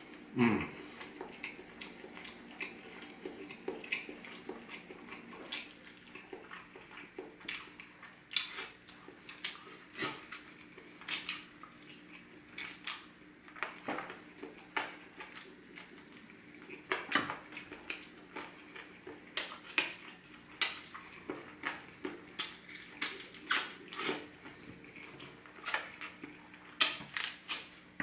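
A person eating chicken with his fingers, with irregular wet mouth clicks and smacks and occasional clinks of a fork on a plate. There is a brief falling 'mmm'-like vocal sound right at the start.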